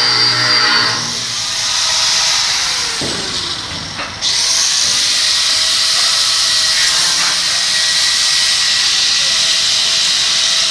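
Power grinder working a surface: a motor whine in the first second gives way to a dense, steady grinding hiss. The hiss eases off for a few seconds and comes back suddenly and loud about four seconds in.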